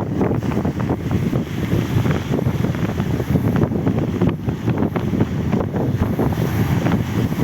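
Wind buffeting the microphone in steady gusts, with the sea's surf underneath.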